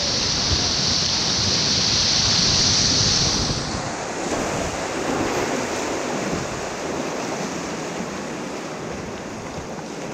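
Fast river water rushing and splashing around a whitewater kayak running small rapids. A bright hiss of spray fills the first three or four seconds, then the rush grows quieter.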